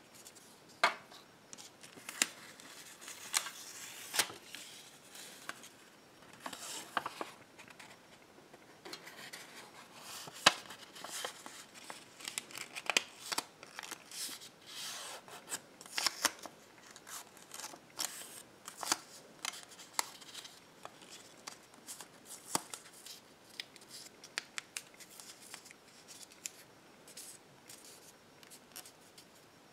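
Small folded slips of paper being unfolded and smoothed flat by hand: crisp crinkling and rustling broken by many sharp paper crackles and clicks.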